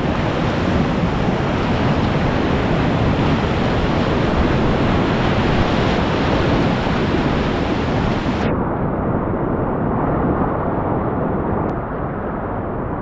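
Whitewater rapids rushing loudly and steadily around a kayak. About two-thirds of the way through the hiss suddenly goes duller as the boat comes out into calmer water.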